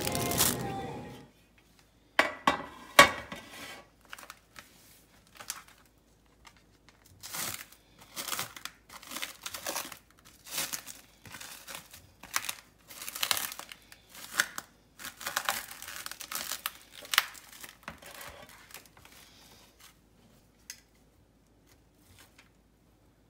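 Thin plastic cling wrap crinkling and tearing in irregular bursts as it is peeled off a packaged steak on a foam tray. Before that, music cuts off about a second in, and near the end there are a few faint clicks.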